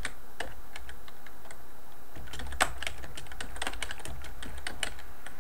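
Typing on a computer keyboard: a few scattered key clicks, then a quicker run of keystrokes from about two seconds in.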